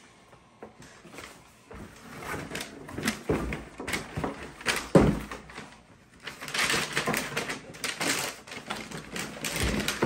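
Cardboard boot box being opened by hand: flaps and lid handled and paper wrapping rustling and crinkling as a boot is unwrapped, with a thump about five seconds in.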